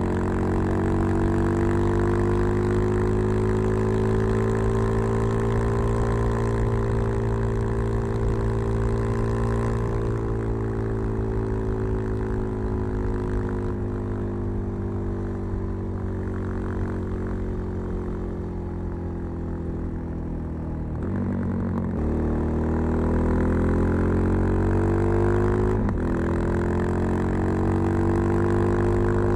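Suzuki DR-Z 400 supermoto's single-cylinder four-stroke, fed by a Keihin FCR 39 carburettor and breathing through a LeoVince V3 silencer with its dB-killer in, running under way. The engine note eases slowly down over the first two thirds. It then breaks with a gear change and climbs again, with another shift near the end.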